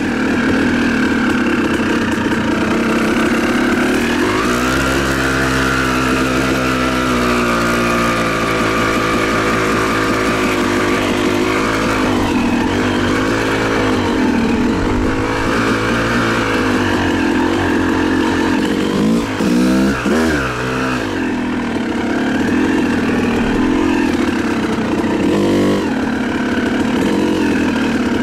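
Yamaha YZ250 two-stroke single-cylinder dirt bike engine running under way, its revs rising and falling with the throttle, with a burst of quick revs about two-thirds of the way through.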